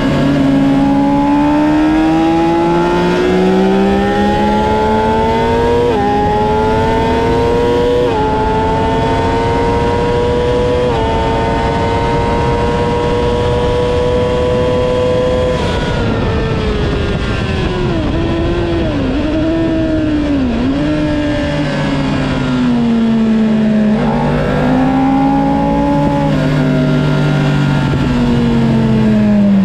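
Honda CBR600RR's inline-four engine, heard from on board, accelerating hard with three upshifts in the first 11 seconds, then pulling steadily higher until about 15 seconds in. It then shuts off sharply and drops through several quick downshifts with throttle blips under braking, before picking up again out of the corner, over a steady rush of wind.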